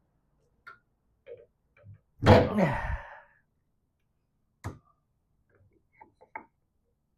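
Workshop handling sounds of tools and metal parts: scattered light clicks and ticks, a louder scraping clatter with a falling squeal a little over two seconds in, and a sharp click near the middle.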